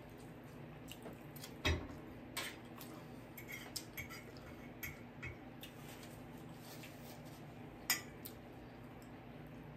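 Cutlery clicking and scraping against plates and dishes while eating. Soft clicks are scattered through it, with two louder knocks, one about a second and a half in and one about eight seconds in.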